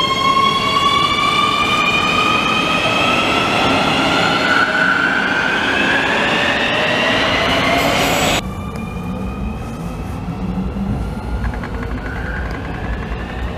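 Nuremberg U-Bahn train's electric traction drive whining in several tones that rise together in pitch as the train accelerates, over the rumble of wheels on rail. About eight seconds in, the sound cuts off abruptly. It is followed by a quieter recording of the same kind of rising whine.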